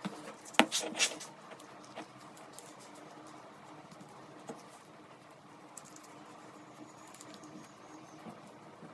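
Workshop handling sounds during work on an old revolver: two sharp clicks about half a second apart near the start, then faint scattered ticks and light scratching over a steady low hum.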